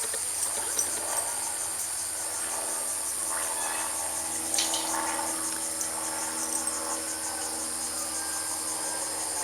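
Insects chirping outdoors, a high, evenly pulsing trill that keeps going throughout, over a faint steady hum.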